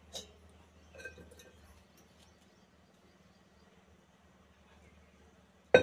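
Quiet kitchen with a faint low hum and a few light clinks of a steel pot being handled in the first second or so, then one sharp click just before the end.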